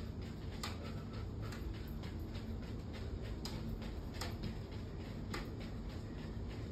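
Sneakers stepping and tapping on an exercise mat and tile floor during a home workout: irregular sharp taps, roughly one every second or so, over a steady low hum.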